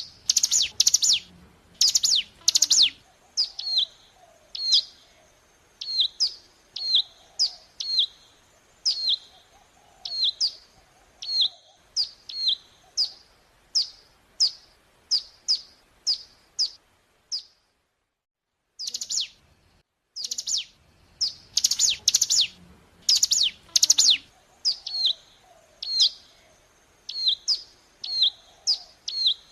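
Ciblek gunung (hill prinia) singing: a long series of sharp, high, downward-sweeping chirps, in quick clusters and then at about two a second. The song breaks off for about a second and a half two-thirds of the way through, then comes back in a fast burst.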